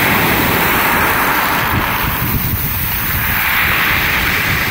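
Sea waves breaking on a pebble beach, the hiss of water rushing over the shingle loud at first, easing about halfway through and swelling again with the next wave near the end.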